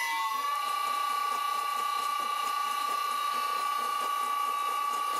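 Vintage Karger lathe just started on its new electric motor and variable-frequency drive, running at 60 Hz. A steady high whine with several fainter tones above it rises slightly in pitch at the start as it comes up to speed, then holds.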